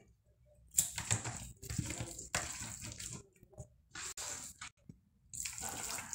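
Wet squelching and slapping as raw meat pieces on the bone are pressed and turned by hand in a bowl of oil-and-spice marinade. It comes in irregular bursts, with a short lull about two-thirds of the way through.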